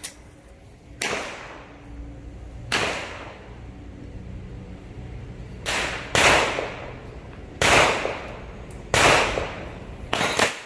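Pistol shots with a ringing echo, from a Walther PP firing rubber bullets: about eight sharp cracks, the three loudest in the second half, about a second and a half apart.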